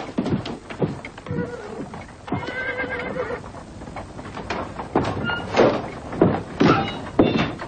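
Hoofbeats of several horses, with a horse whinnying for about a second, starting about two seconds in.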